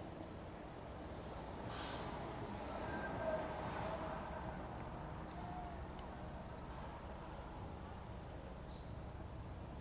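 City street ambience: a steady low rumble of traffic and the city, swelling slightly around three to four seconds in, with a few faint high chirps.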